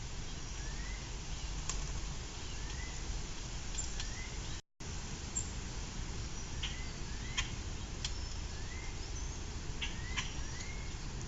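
Outdoor ambience with a bird calling short rising notes about once a second over a steady low rumble, broken by a few sharp clicks and a brief dropout a little under halfway.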